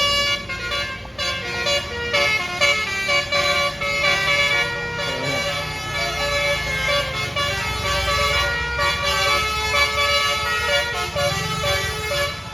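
A bus's basuri multi-trumpet musical air horn plays a 'telolet' tune, its notes stepping quickly from pitch to pitch without a break. Underneath runs the low rumble of the engine.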